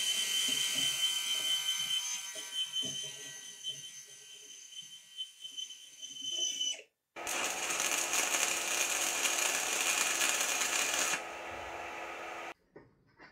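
Small DC motor of a homemade MIG wire feeder running with a steady whine, driving welding wire out through the torch. It stops about seven seconds in. Then an electric welding arc from an inverter welder hisses and crackles on a steel bar for about five seconds, dropping in level just before it stops.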